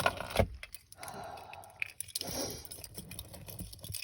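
Scattered light clicks and rustling from things being handled at close range.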